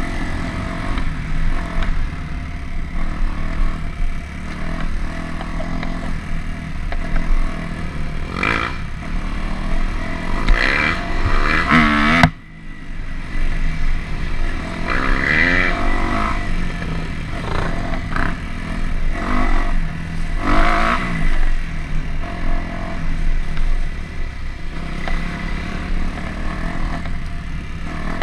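Dirt bike engine running under the rider, revving up and down through the throttle, with rising sweeps in pitch several times and a sudden brief drop as the throttle shuts off midway.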